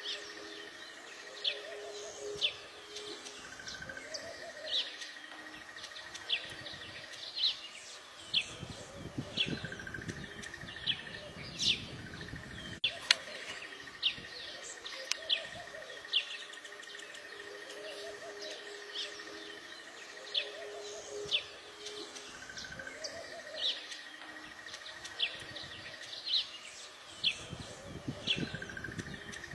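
Weaver birds chirping in short, sharp calls, many in a row, over a steady high buzz, with low calls repeating underneath.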